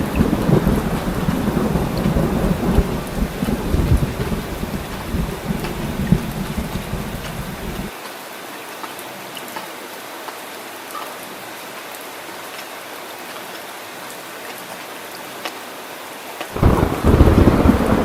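Heavy rain hissing steadily with thunder rumbling low beneath it. The rumble cuts off abruptly about eight seconds in, leaving only the rain, and comes back just as suddenly near the end.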